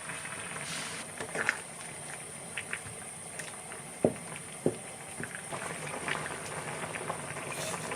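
Kitchen cooking sounds: food bubbling or sizzling steadily, with scattered light clicks and two sharper knocks of a utensil about four seconds in.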